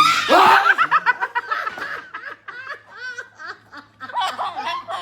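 Hearty laughter, loudest in the first two seconds, then breaking into shorter, choppier bouts.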